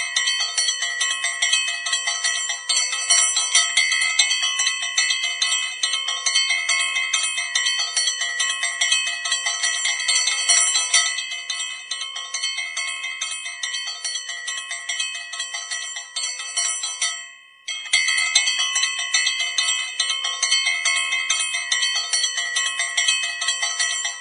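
A bell rung rapidly and continuously, its clapper striking many times a second on the same ringing tones. The ringing fades and breaks off briefly about 17 seconds in, then resumes.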